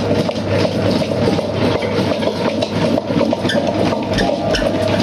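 Tabletop wet grinder running, its stone roller turning in the steel drum through thick urad dal batter: a steady motor hum with a grinding rumble. The batter is fully ground, thick enough to form a ball for medu vada. A few low thumps sound near the end.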